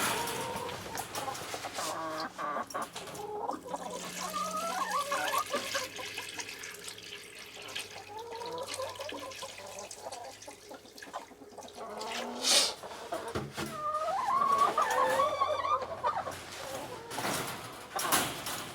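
Domestic chickens clucking on and off, with a few sharp knocks in between.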